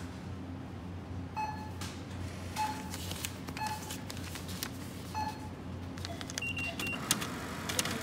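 Supermarket checkout beeps over a steady store hum. Four short electronic beeps come roughly a second apart, then a quick run of higher, shorter beeps past the middle, with scattered clicks and clatter.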